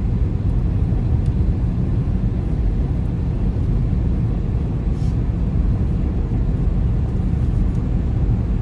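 Steady low rumble of a car driving along a road, heard from inside the cabin: tyre and engine noise.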